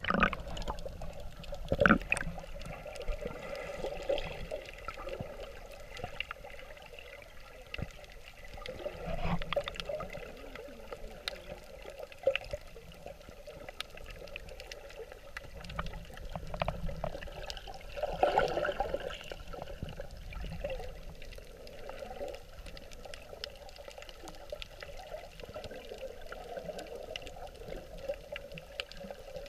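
Underwater sound heard through a camera's waterproof housing during snorkeling: muffled rushing and sloshing of water with scattered clicks and crackles. It swells louder a few times, about two, nine and eighteen seconds in.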